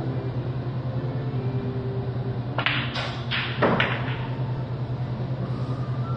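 Pool shot on a sinuca table: the cue tip strikes the cue ball and balls click together, four sharp clicks in about a second starting around halfway, the last the loudest. A steady low hum runs underneath.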